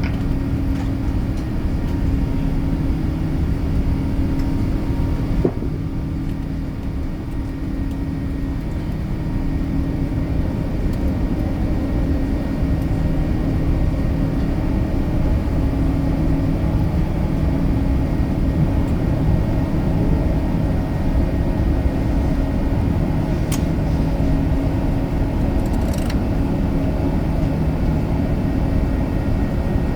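Steady in-flight cabin noise of an Airbus A380 airliner: a continuous rumble of engine and airflow with a low hum, and two faint clicks near the end.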